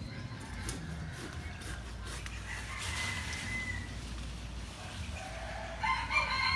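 Rooster crowing, one call near the end, over a low steady rumble.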